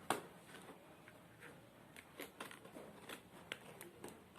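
Faint, scattered clicks and rustles of an alarm clock and its packaging being handled, with one sharper click at the very start.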